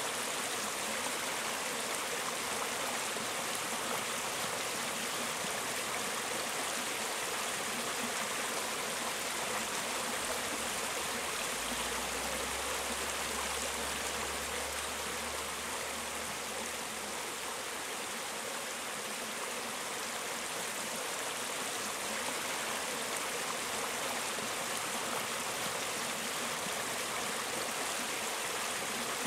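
Mountain stream running over rocks, a steady rush of flowing water.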